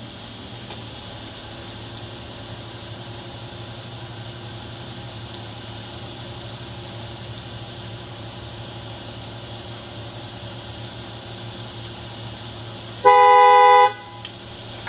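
A vehicle horn blasts once, loud and for about a second, near the end, over a steady low hum.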